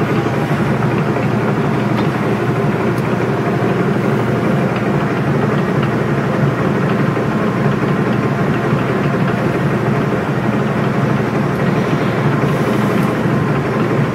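Birmingham YCL22120 22-by-120-inch heavy-duty engine lathe running under power: a steady mechanical hum and whir that holds even throughout.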